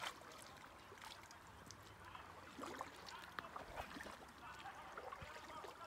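Faint paddling from a sit-on-top kayak: a double-bladed paddle dipping into calm water, with small splashes and drips plinking off the blades. A sharp click comes right at the start.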